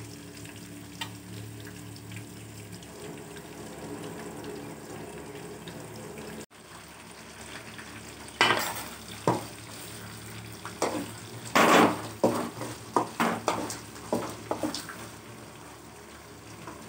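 Onions, peanuts and curry leaves frying in ghee in a metal kadai, with a steady low sizzle. From about halfway, a wooden spatula stirs and scrapes against the pan in a run of sharp strokes, the loudest sounds here.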